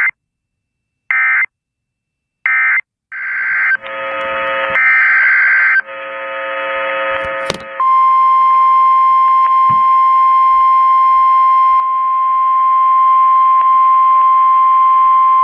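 Three short bursts of Emergency Alert System digital data tones, then a few seconds of buzzy data tones over radio static. These are followed by a single steady, loud NOAA Weather Radio 1050 Hz warning alarm tone that starts about eight seconds in and holds for about nine seconds, announcing the next alert.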